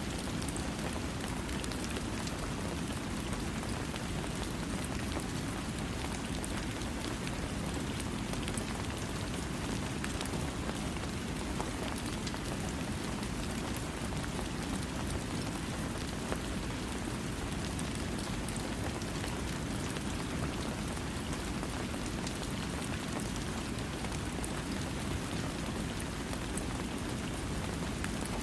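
Steady rain falling, with no thunder: an even, unbroken hiss with individual drops ticking through it.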